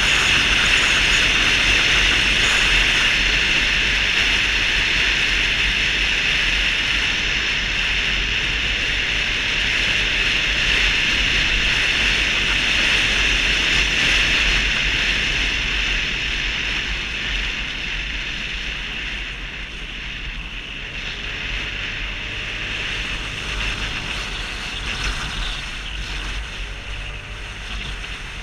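Wind rushing over the microphone with a steady low drone from a Vespa GTS 250 scooter's single-cylinder four-stroke engine, ridden at speed; the noise grows somewhat quieter past the middle.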